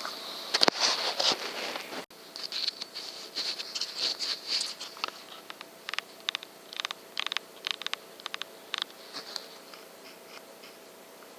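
Rats squeaking and scrabbling: a run of sharp, irregular high-pitched squeaks and clicks. They come thick at first and thin out toward the end, over a faint steady hum.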